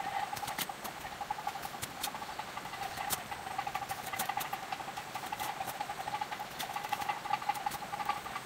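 Hand hoe chopping and scraping through loose, dry soil: a run of irregular sharp strikes, several a second, over a steady pulsing tone in the background.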